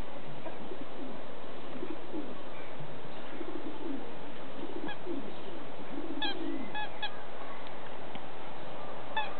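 Soft, low animal calls repeated over a steady hiss, with a few short, higher squeaks from about five seconds in.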